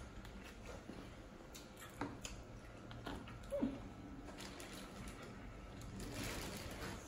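Close-up eating sounds: shellfish being peeled by hand in sauce, with wet squishing, chewing and a few sharp clicks of shell about two seconds in. A brief falling squeak about three and a half seconds in is the loudest moment, and a soft rustle follows near the end.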